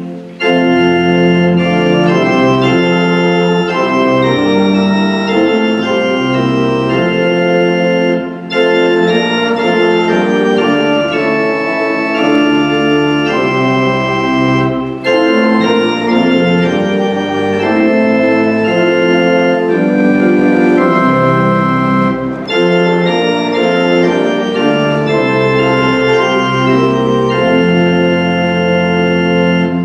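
Church organ playing a slow hymn tune in held chords, phrase by phrase, with a brief break between phrases about every seven seconds.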